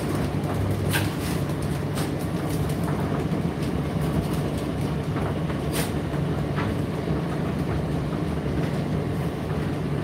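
Indesit IDC8T3 condenser tumble dryer running mid-cycle: a steady low motor hum over the drum's rumble, with a few sharp clicks at irregular moments, the loudest near the middle.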